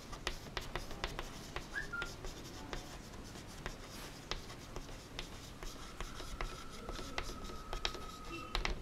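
Chalk writing on a blackboard: a string of light, quick taps and short scratches as the words are written.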